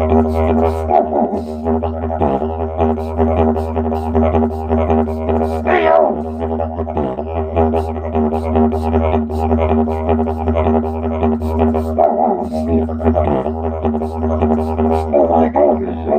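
Didgeridoo played with a continuous low drone, its overtones shifted rhythmically by the mouth, with quick clicking accents on top. About six seconds in, a short voice sound sweeps up and back down through the drone.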